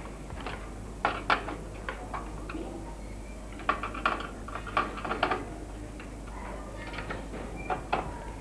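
Screwdriver and small screws clicking and tapping against the metal computer case as the motherboard is screwed down, in irregular clusters of sharp ticks.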